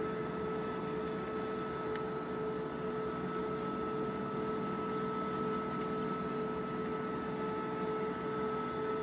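Heavy diesel lifting machinery running steadily during a crane lift: an even mechanical hum with two steady held tones, one mid-pitched and one higher.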